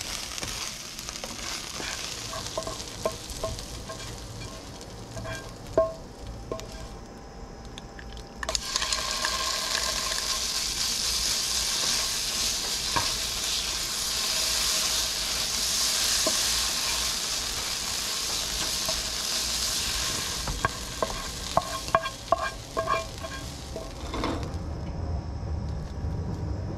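Pulled pork in barbecue sauce sizzling in a nonstick frying pan while a spatula stirs and scrapes it. The sizzle gets louder about a third of the way in. Near the end, a run of sharper clicks and scrapes of the spatula against the pan.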